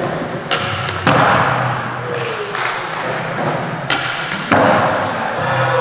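Skateboard on a concrete floor: wheels rolling, with several sharp clacks and thuds of the board popping and landing. The loudest is a clack as the board is popped for a flip trick about four seconds in, followed half a second later by the thud of the landing.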